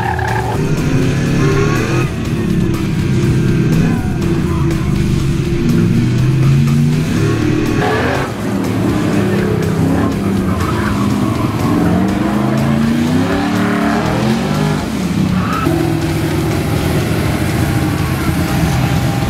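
Car engines revving hard and easing off again and again as cars run an autocross cone course, with tires squealing at times.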